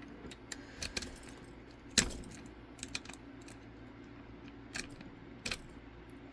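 Sharp, scattered metallic clicks and clinks of a lock, its key and metal lockpicking tools being handled, the loudest about two seconds in.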